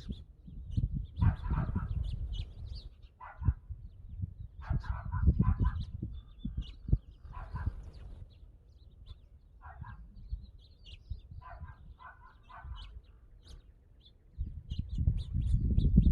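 Birds calling and chirping: short harsh calls repeating every one to two seconds, with thin high chirps between them, over a low rumble that gets louder near the end.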